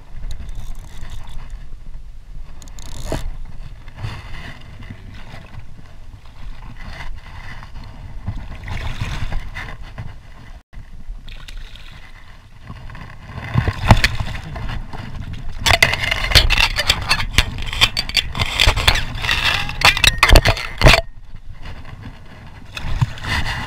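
River water splashing and sloshing around hands holding a salmon in the current for release, louder and heavier for several seconds past the middle.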